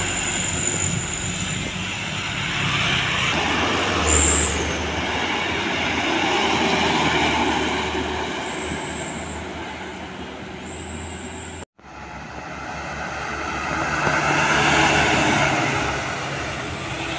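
Diesel cargo trucks passing close by one after another, engine and tyre noise swelling and fading as each goes past. Several short high whistles occur in the first two-thirds, and the sound cuts out for a moment about two-thirds through.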